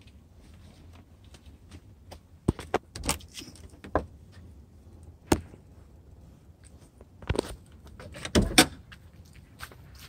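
Keys jangling and a car door being handled: a scatter of sharp clicks and knocks at uneven spacing, the loudest two close together near the end.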